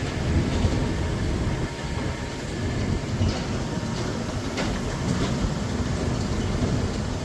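Heavy harvest machinery running: a steady low rumble with scattered rattles and clanks.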